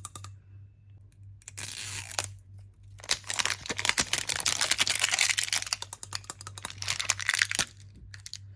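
Packaging being crinkled and torn open by hand: a short rustle about two seconds in, then a longer stretch of dense crinkling and crackling lasting about four seconds.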